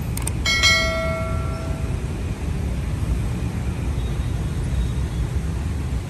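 Steady low outdoor rumble, with a short click and then a ringing tone with several overtones about half a second in, fading out after about a second and a half.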